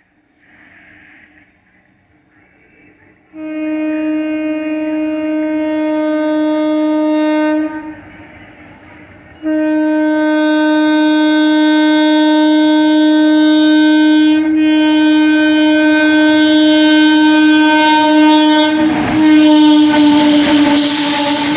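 WAP-7 electric locomotive's horn sounding two long, steady blasts, the first about four seconds and the second about nine seconds. Near the end comes the loud rush of the train going past.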